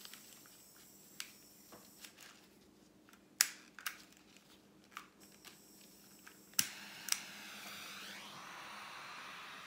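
Small handheld butane torch: a series of sharp igniter clicks, two loud ones close together, then it catches about seven seconds in and hisses steadily, the hiss wavering as the flame is moved over the paint.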